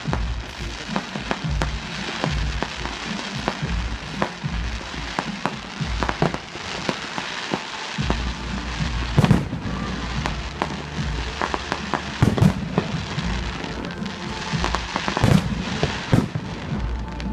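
Aerial fireworks shells launching and bursting: a steady run of sharp bangs and cracks, with several louder reports in the second half.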